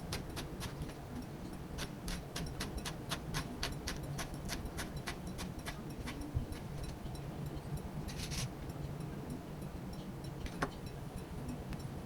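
A quick run of light, sharp clicks, about three to four a second, thinning out after about five seconds, with a short hiss about eight seconds in. A steady low hum runs underneath.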